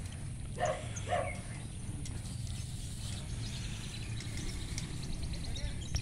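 Caged lovebirds chirping faintly in the background over a steady low rumble, with a couple of brief murmured voice sounds about a second in.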